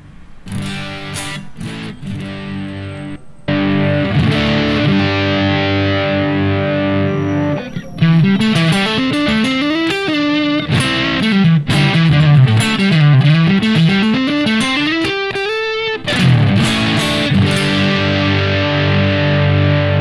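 Squier Affinity Stratocaster electric guitar played through a Yamaha THR10X amp. A few short strums lead into held chords, then fast runs climb and fall in the middle, and held chords return near the end.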